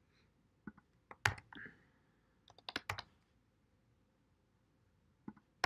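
Computer keyboard typing: soft, irregular keystrokes in small groups, with a quick run of keys about three seconds in and a couple more near the end.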